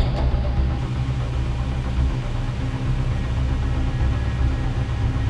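Electric overhead crane hoist running steadily at slow speed, lowering a suspended dirt bike: a steady low motor hum.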